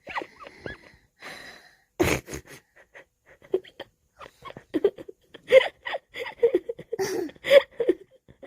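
A young child imitating snoring: a quick run of short snorts and wheezy breaths, getting louder and denser about halfway through.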